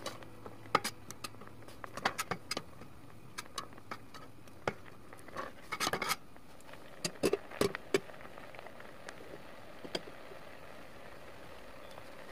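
A metal spoon clinking and scraping against a stainless steel pot while stirring thick, bubbling mugwort jam. The sharp clinks come irregularly in small clusters over a steady low background and thin out over the last couple of seconds.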